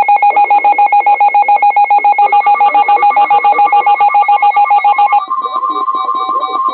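Loud electronic alert tone pulsing rapidly in a shrill, ringing warble, like a telephone bell. About five seconds in, its pitch shifts higher and the pattern changes.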